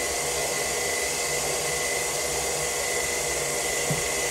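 Electric stand mixer running steadily at low speed, mixing soaked fruit into fruit cake batter: an even motor whir with a thin steady whine. A small knock near the end.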